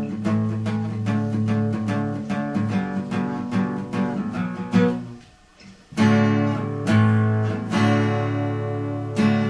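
Acoustic guitar strummed in a steady rhythm, with its chords ringing. The strumming stops briefly about five seconds in, then resumes.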